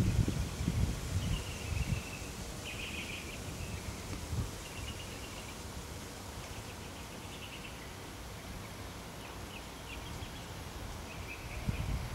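Outdoor ambience with short, high chirping trills from small wildlife, repeating every second or two. Low rumbling buffets on the microphone in the first two seconds and again near the end.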